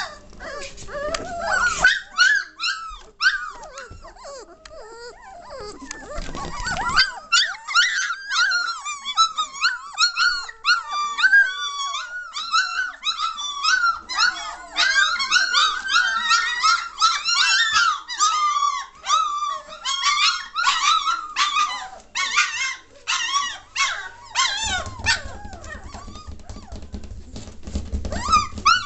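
A litter of three-week-old German Shorthaired Pointer puppies whining and yelping together, many high cries overlapping without a break. A low rumble joins in near the end.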